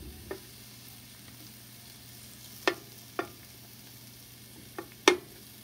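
Sliced cremini mushrooms sizzling faintly in a frying pan while a slotted spatula spreads them into a single layer. The spatula knocks and scrapes against the pan a handful of times, loudest near the end.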